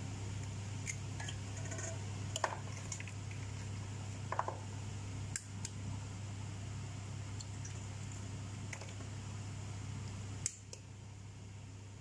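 Eggs being cracked one after another into a stainless steel bowl: scattered sharp taps and shell cracks over a steady low hum.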